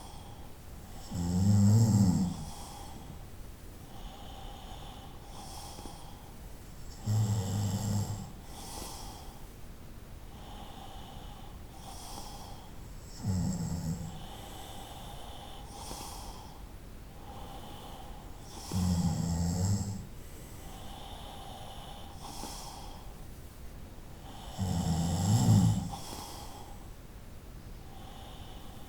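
A person snoring: five loud, low snores about six seconds apart, each lasting about a second, with a quieter out-breath between them.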